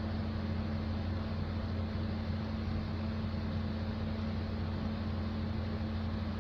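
A steady low mechanical hum with an even hiss, unchanging throughout.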